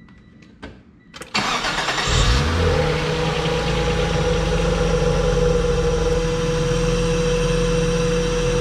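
1995 Acura Legend's 3.2-litre V6 being started: a few clicks, then the starter cranks briefly and the engine catches about two seconds in and settles into a steady idle. It is the first start after the battery was disconnected, with a new Weapon R cone-filter intake, while the engine computer relearns its idle.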